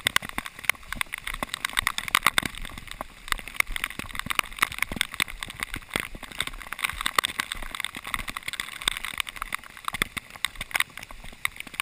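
Rushing flash-flood water in a slot canyon, heard as a rough noisy wash shot through with a dense, irregular crackle of clicks and knocks.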